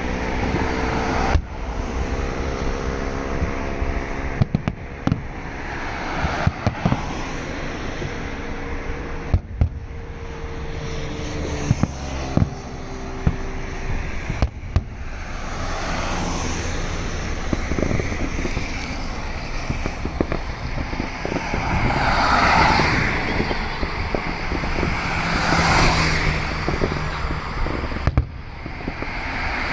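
Fireworks display: many sharp bangs of shells bursting at irregular intervals over a steady background rumble.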